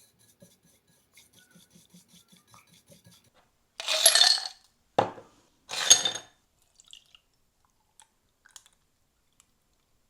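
Kitchenware handled while making matcha: faint quick rhythmic scraping at about five strokes a second, then two loud clattering, rushing sounds about four and six seconds in with a sharp knock between them.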